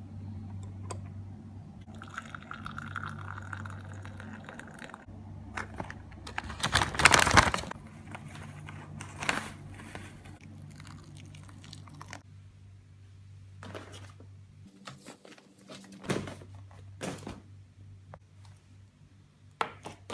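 Home breakfast being made in a small kitchen: scattered knocks and clatters of dishes and utensils, with some liquid sounds, over a steady low hum. The loudest clatter comes about seven seconds in.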